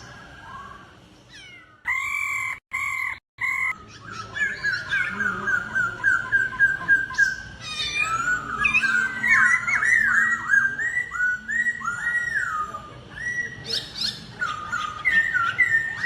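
Laughingthrush (khướu) singing a long run of clear whistled notes and quick rising and falling glides. The sound cuts out twice, briefly, about three seconds in.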